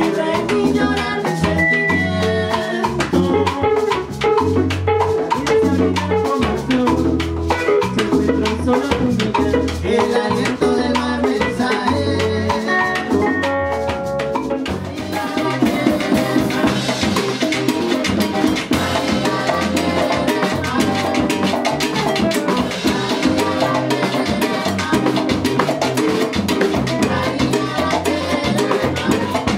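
A live band playing an upbeat Latin-style groove on electric bass, electric guitar, congas and drum kit. About halfway through, the playing grows fuller and brighter, with busier cymbals.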